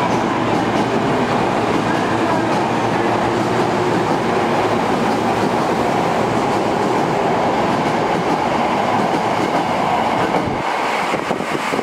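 Osaka Metro 10A series subway train pulling out of an underground station, its cars running past with wheel and rail noise and some clickety-clack. About ten and a half seconds in, the rumble thins out as the last car passes and heads into the tunnel.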